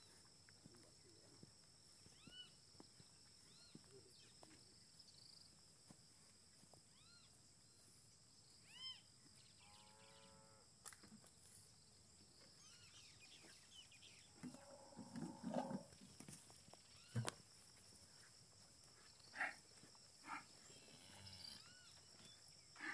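Cattle lowing faintly in a corral, once around ten seconds in and again, longer, around fifteen seconds in, over a steady high-pitched insect-like drone. A sharp knock comes about seventeen seconds in.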